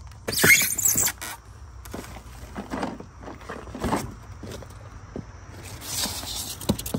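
Packaging being unpacked: plastic sheeting rustling and crinkling, with foam inserts and cardboard scraping and a few light knocks. The loudest rustle comes about half a second in, with another near the end.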